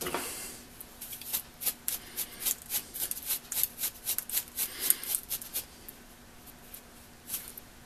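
Stiff-bristled paint brush scrubbing burned debris off an old electric motor's terminal block, in quick short strokes of about three or four a second that stop about two-thirds of the way through. A brief rustle comes at the start.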